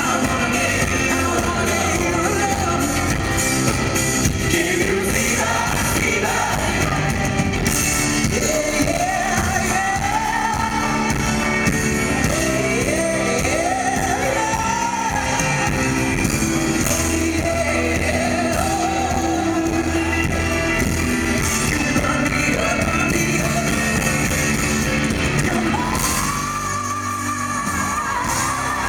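Live pop-rock performance heard from within the audience in a large hall: a male lead vocalist sings into a handheld microphone over a full band with steady bass and drums.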